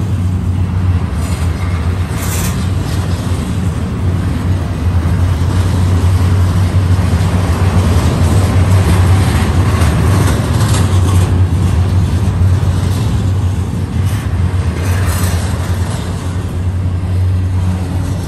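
Double-stack intermodal container well cars rolling past close by: a steady, loud rumble and clatter of steel wheels on the rails, with a few brief high-pitched squeals from the wheels.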